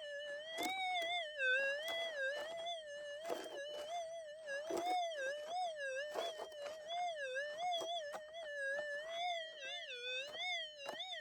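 Minelab SDC 2300 metal detector's continuous threshold tone, wavering up and down in pitch about once a second as the coil is swept over raked ground. Short scrapes and knocks are heard between the waverings.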